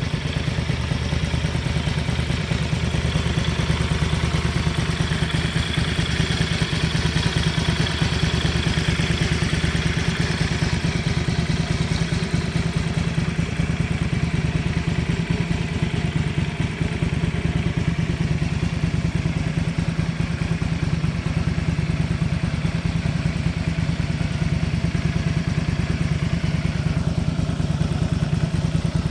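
Honda VT250 Spada's 250 cc V-twin engine idling steadily, with no abnormal engine noise.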